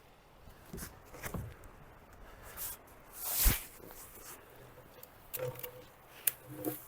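A few scattered knocks and clicks, with one louder thud about three and a half seconds in and two short clunks near the end.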